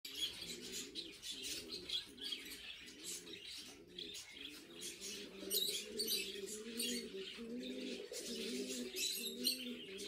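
Lovebirds chirping and chattering in short high notes, over a low cooing call that repeats evenly throughout.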